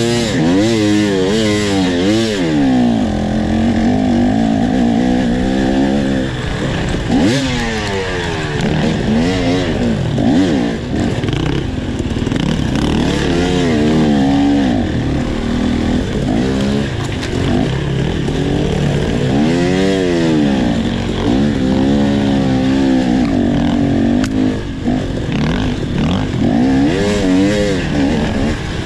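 Dirt bike engine under hard riding on a rough trail, revving up and falling back again and again, its pitch rising and dropping every second or two with the throttle and gear changes.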